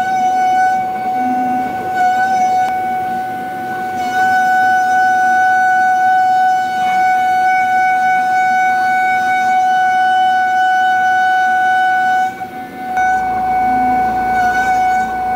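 Pocket NC v2-50 desktop CNC mill milling 6061 aluminium: the high-speed spindle and cutter give a loud, steady, high-pitched whine, a single tone with overtones, as the roughing cut runs. The loudness dips briefly near the end before the whine carries on.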